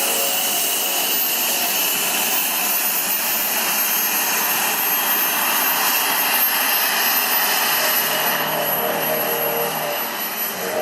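JetCat P-180Rxi model turbine jets in flight, a pair of Carf L-39 Albatros RC models: a loud, steady rush with a high turbine whine that slowly falls in pitch as they pass.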